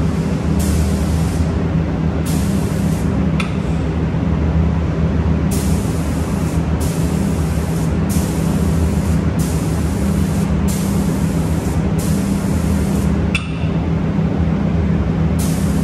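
Robotic finishing spray gun hissing in repeated bursts of about a second each as it triggers on and off over the cabinet doors, with pauses about three and a half seconds in and again near the end. Under it runs a steady low machine hum.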